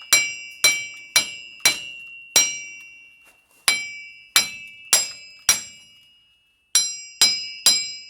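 Hammer blows on a 2004 Chevy Silverado's front wheel hub assembly to knock it loose from the steering knuckle: about a dozen sharp metallic strikes, each ringing out, in uneven runs of two a second with short pauses between.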